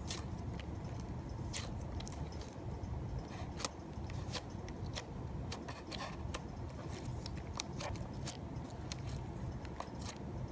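Fingers poking, pressing and folding a creamy slime, making many small irregular clicks and pops over a low steady background hum.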